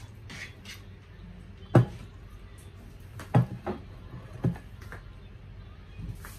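A few short, dull knocks, the loudest about two seconds in and three smaller ones between three and a half and four and a half seconds, over a low steady hum.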